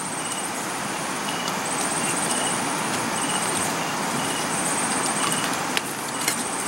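Night insects trilling in a high, pulsing chorus over a steady rushing noise, with a few light clicks of spoons against metal bowls near the end.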